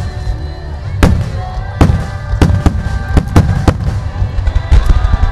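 Starmine fireworks barrage: shells bursting in a quick, uneven series of sharp bangs, a dozen or so over the few seconds, several coming in rapid clusters, over a steady low rumble. Music plays faintly underneath.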